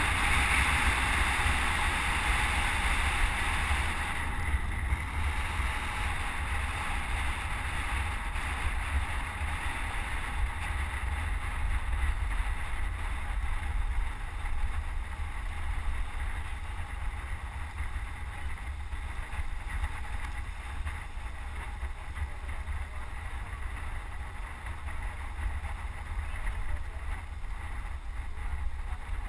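Rushing wind buffeting a helmet-mounted GoPro HD Hero camera while riding a road bike, with a constant low rumble and a hiss of wind and road noise. It is loudest at first and eases after about five seconds.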